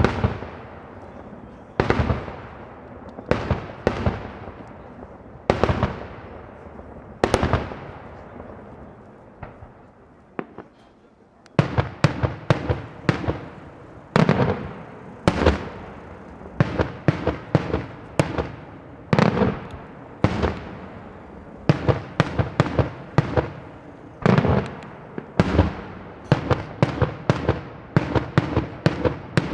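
Daylight fireworks display: aerial shells bursting with sharp, echoing bangs. The bangs come one every second or two at first, then after a short lull about ten seconds in they come much faster, several a second.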